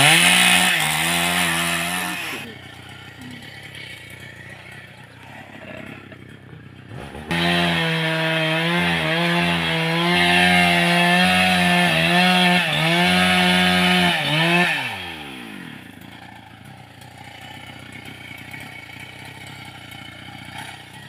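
Small two-stroke engine, like a chainsaw's, revving up twice: a short burst at the start and a longer one in the middle lasting about eight seconds. Each burst holds a steady high pitch with slight wavering, then winds down with a falling pitch.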